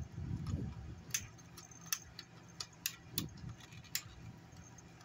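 Small screwdriver working at the plastic gear mechanism behind the face of a 1999 Hasbro Furby, whose motor is jammed. About half a dozen sharp, light clicks come at irregular intervals, over a low rumble in the first second and again about three seconds in.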